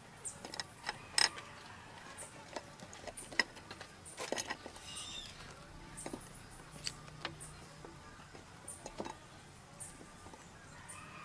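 Scattered light clicks and taps as raw seafood (squid, shrimp and crab) is set by hand into a pot of broth, shells knocking against each other and the pot, with a short cluster of knocks a few seconds in.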